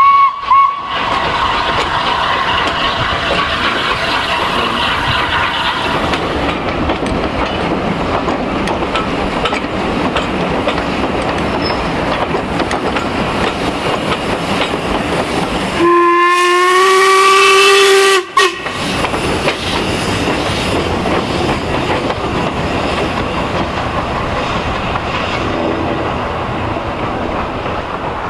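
Steam train on the move: coaches rumbling and clattering over the rails, with a steam locomotive's whistle blown once, long and loud for about two seconds a little past the middle. A brief whistle note also sounds right at the start.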